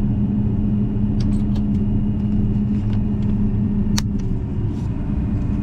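Steady low rumble of a vehicle engine running, with a steady hum that fades about four seconds in and a few faint clicks over it.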